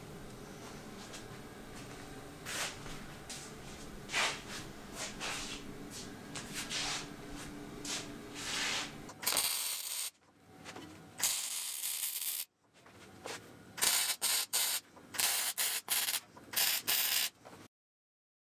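Arc welding on sheet steel in short runs, a loud crackle that starts and stops abruptly several times in the second half. Before that, a steady low hum with short scraping sounds every second or so.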